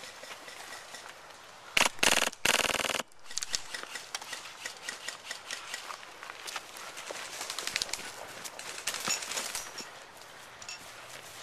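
Airsoft gun firing two short full-auto bursts, a rapid run of sharp clicks about two seconds in, followed by scattered faint clicks and rustling.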